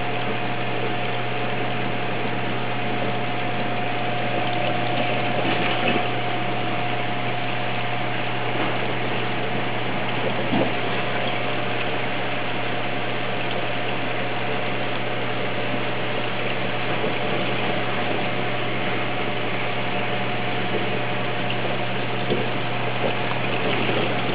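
Steady hiss of a reef aquarium's water circulation and pumps, with a constant low hum and a faint steady whine under it.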